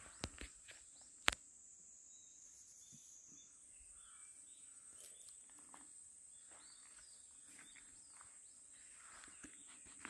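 Insects in a summer forest, a steady high-pitched drone that goes on without a break. Two sharp clicks come in the first second and a half, and there are scattered soft footfalls on a dirt path.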